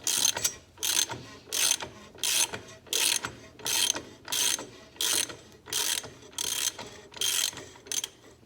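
Ratchet wrench clicking in short, even bursts about every two-thirds of a second, backing a large threaded accumulator plug out of an overdrive housing.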